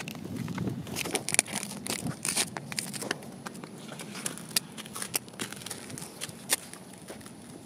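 Donkey tearing at and chewing dry plants, a run of crisp crunching and snapping sounds that is thickest in the first three seconds and sparser after.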